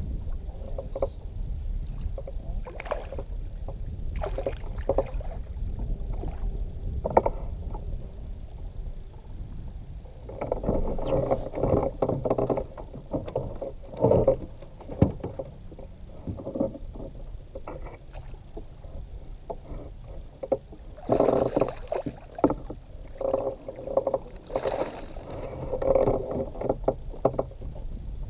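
Water lapping and sloshing against a fishing kayak's hull in uneven bursts over a steady low rumble, with a few short knocks from gear on the boat.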